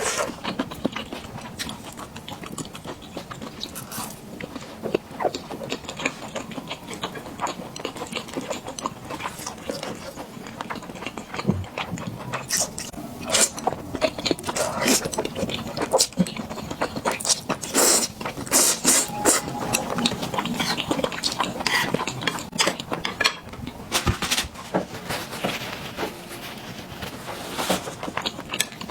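Close-up eating sounds: a person chewing and biting food, with many irregular short clicks and crackles from the mouth.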